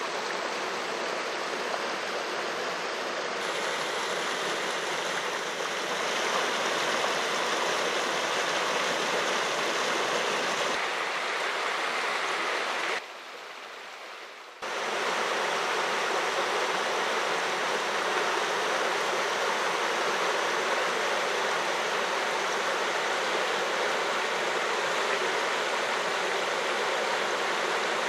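Partly frozen mountain brook rushing steadily over boulders and between shelves of ice. The rush drops quieter for about a second and a half midway.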